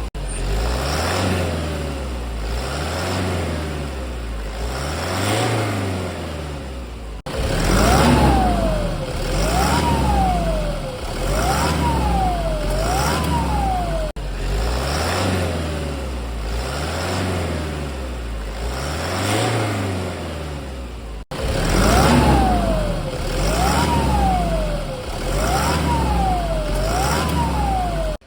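Toyota Hilux 1KD 3.0-litre four-cylinder turbodiesel, fitted with a new turbocharger, revved in repeated blips about two seconds apart. With each rev a turbo whine rises and falls. The sound breaks off sharply three times.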